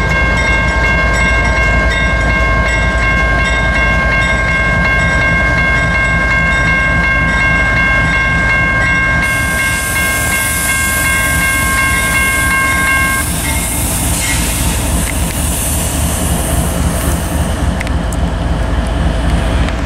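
A General Signals Type 1 electronic crossing bell rings steadily over the low rumble of a GE diesel locomotive backing away from the crossing. The bell cuts off about two-thirds of the way through as the crossing signal shuts off with the train clear.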